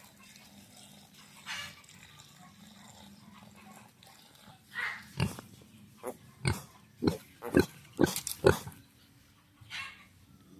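Native pigs, piglets feeding beside their sow, giving a run of about seven short grunts in quick succession from about halfway through, with a few fainter ones around them.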